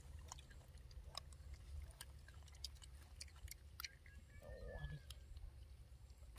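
Near silence: faint scattered clicks over a low background rumble, with one short faint call about four and a half seconds in.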